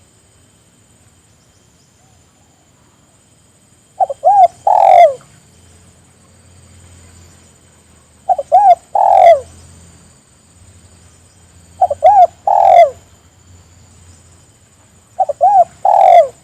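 Spotted dove (tekukur) cooing: four calls about four seconds apart, the first about four seconds in, each two short coos followed by a longer coo that falls in pitch. It is a tekukur lure call (pancingan), used to get other spotted doves to answer and sing.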